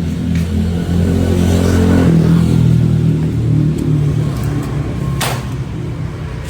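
Motorcycle engine running, rising in level about a second in as it is revved and easing back after a couple of seconds. A single sharp click about five seconds in.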